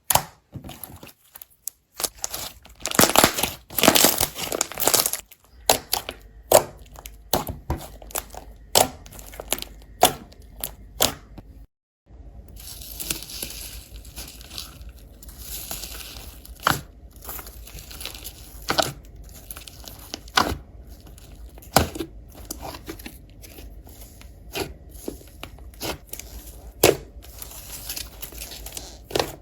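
Slime being squished and pulled apart by hand, giving a string of sharp pops and crackles, denser for a few seconds early on, with a brief gap about twelve seconds in.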